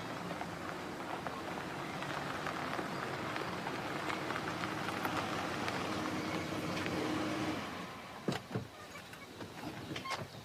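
Ford Taurus station wagon driving slowly up a gravel driveway, growing louder as it comes close, then stopping about three-quarters of the way in. A couple of sharp clicks follow as the driver's door is opened.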